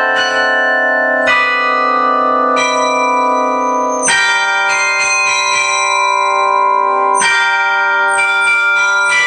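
Carillon bells playing a slow melody, struck one chord or note at a time and left ringing over each other, with the next strikes coming every second or few seconds.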